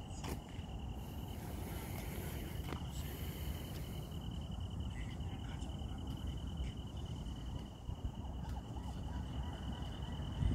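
An insect trilling steadily on one high pitch, a fast even pulsing, over a low rumble of background noise, with a few faint clicks.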